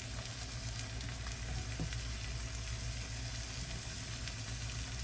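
Pork tenderloin and onions sizzling steadily in a nonstick skillet with a splash of vinegar-based liquid, over lowered heat.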